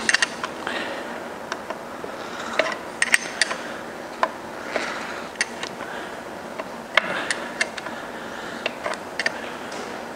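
Steel combination wrench clicking and clinking on a pressure tap plug and the transmission's cast case as the plug is threaded back into its port and tightened. The clicks come irregularly, and a few of them ring briefly.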